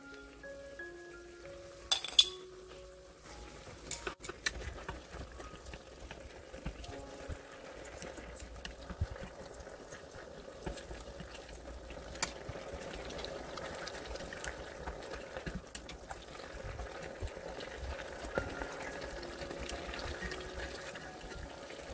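Chicken drumsticks simmering in tomato sauce in a frying pan, bubbling faintly, while chopsticks stir and turn them with small ticks and clinks against the pan; one sharper clink comes about two seconds in. Soft background music plays at the start and again near the end.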